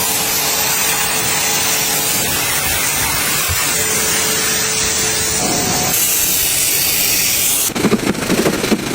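Pressure washer jet spraying, a steady loud hiss. Near the end the sound turns rougher and uneven.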